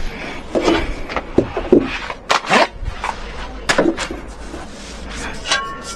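A series of irregular knocks and clicks.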